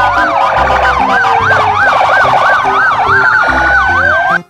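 Several police car sirens sounding together: a fast yelp rising and falling about three times a second over slower wails. It cuts off suddenly near the end.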